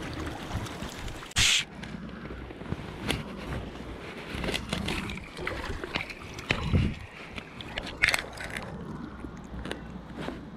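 River water flowing and sloshing around a wading angler, with wind buffeting the microphone. There is a short sharp noisy burst about a second and a half in and another about eight seconds in.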